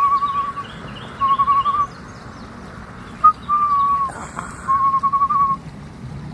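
A bird calling: four short warbling trills at one steady pitch, with a brief single note before the third. Fainter, higher chirps from other birds come in the first couple of seconds, over a steady rushing background.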